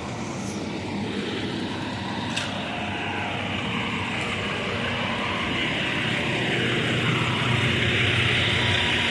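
Engine-driven machinery running steadily and slowly growing louder.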